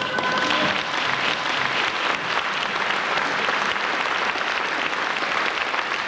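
Audience applauding in a large concert hall, a dense, steady clapping. The last held notes of the music die away in the first second.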